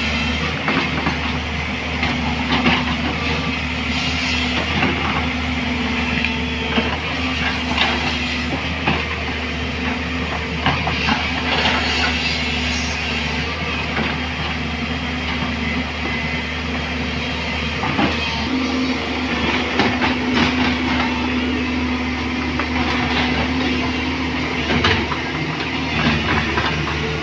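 JCB backhoe loader's diesel engine running steadily under load, with frequent metallic clanks and knocks from the digging arm and bucket.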